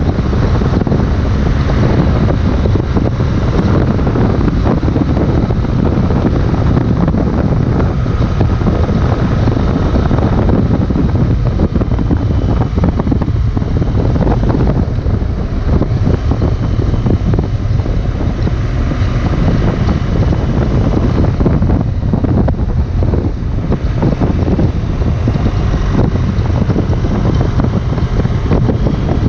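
Wind rushing and buffeting over the microphone while riding a 2018 BMW R 1200 GS, with the motorcycle's boxer-twin engine running underneath at a steady pace.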